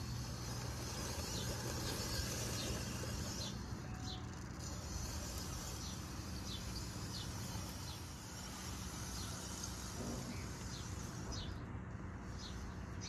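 Low steady hum of an RC rock crawler's brushless outrunner motor and drivetrain as it crawls up rocks, strongest in the first few seconds. Birds chirp over it with short high repeated calls.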